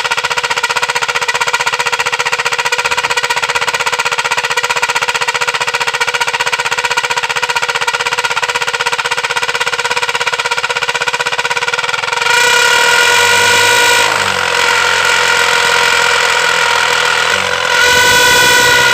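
Motorcycle exhaust fitted with a homemade plastic sound attachment, giving a loud, buzzing, horn-like tone over the engine's rapid firing pulses. About twelve seconds in it gets louder and shifts in pitch, and does so again near the end.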